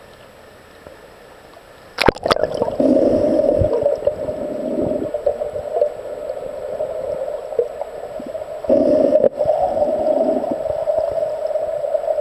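Muffled underwater noise, as heard by a submerged camera in clear spring water. About two seconds in there are a few sharp clicks and a sudden rise in level. After that comes a steady, dull gurgling hum.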